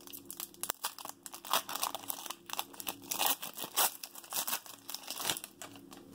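Foil wrapper of a football trading-card pack being torn open and crinkled by hand: a dense run of sharp crackles that dies away near the end as the cards come out.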